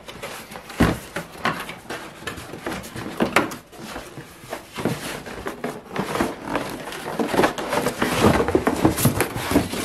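Cardboard boxes being opened and handled: flaps scraping and rustling, with irregular knocks and a sharp thump about a second in.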